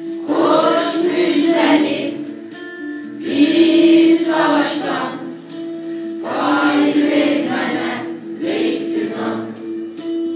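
Group of children singing a song together as a choir in four phrases separated by short breaths, over a held instrumental accompaniment that sounds on through the pauses.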